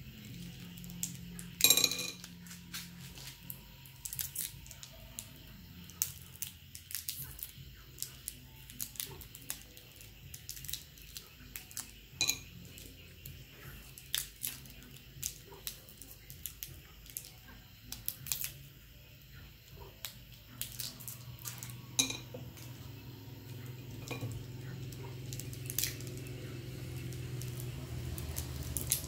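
Hard candies being unwrapped by hand: plastic wrappers crinkling, with sharp clicks as candies knock against a ceramic plate, the loudest about two seconds in. A low steady hum runs underneath.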